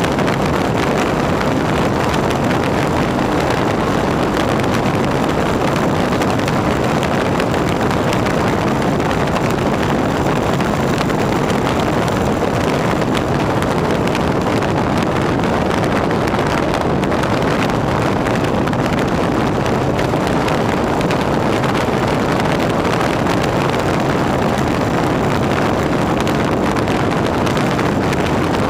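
Harley-Davidson V-twin motorcycle cruising at a steady speed, the engine running under a constant rush of wind on the microphone.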